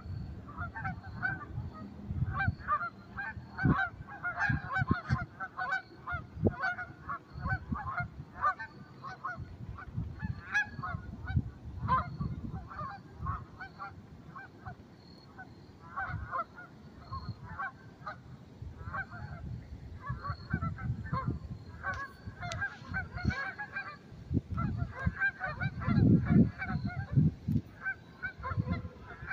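A flock of Canada geese honking, many short calls overlapping almost without a break, with low rumbles on the microphone that are strongest a few seconds before the end.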